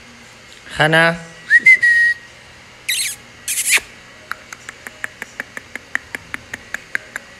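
A person calling a puppy: the name 'Hana?' called once, then a short whistle-like tone and two sharp high squeaks, followed by a run of about fifteen quick, even clicks, about five a second.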